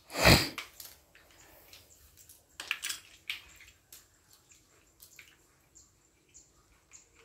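Plastic toy building blocks clicking and clattering as they are handled and snapped together. A loud thump comes just after the start, and a cluster of louder clatters about three seconds in, with small scattered clicks in between.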